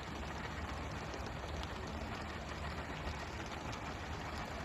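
Steady hiss and splatter of the fishing boat's water sprayers hitting the sea, over the low hum of the boat's engine, with faint scattered ticks.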